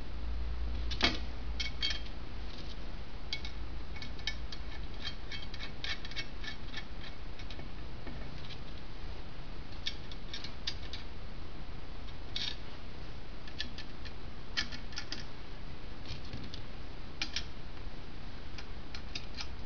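Irregular clusters of light metallic clicks and clinks from hand tools and steel parts being worked on a Jaguar E-Type brake pedal box, with one sharper click about a second in. A low hum runs underneath and fades after the first few seconds.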